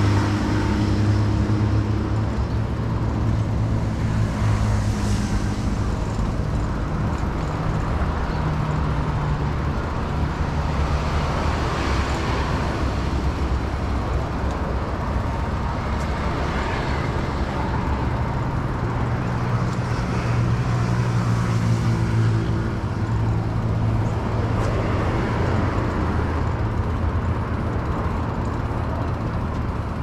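Steady road traffic noise from an expressway, a continuous low hum of engines and tyres that swells and eases every few seconds as vehicles pass.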